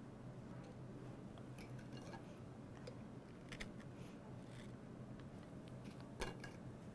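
Faint clicks and taps as graham crackers are handled and set into a ceramic baking dish, a few light ticks and one sharper click near the end, over a steady low hum.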